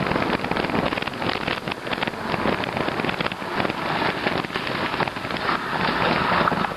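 E-bike tyres running over a wet, slushy road: a steady, dense crackle and spatter of many small clicks and rattles.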